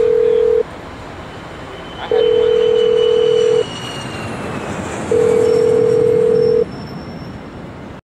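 Telephone ringback tone of an outgoing call ringing on the line: a steady tone about a second and a half long with equally long pauses, sounding three times, over a constant background of street noise.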